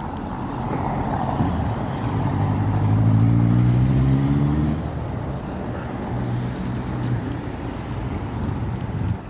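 A motor vehicle's engine passing along the street, rising a little in pitch as it accelerates, loudest about three to four seconds in and fading a second later, with a fainter engine briefly after it over a steady traffic hum.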